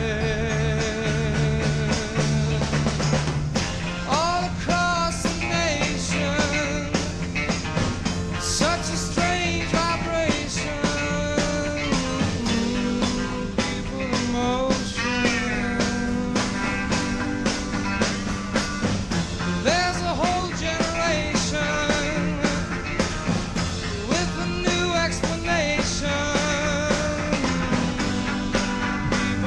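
Background music with held low bass notes under a wavering lead melody line.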